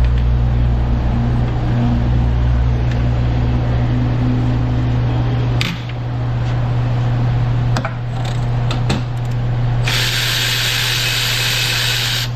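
Tool work on a brake caliper bracket bolt: a power tool runs for the first few seconds, then comes a series of sharp metal clicks, and about ten seconds in a loud hiss that lasts about two seconds.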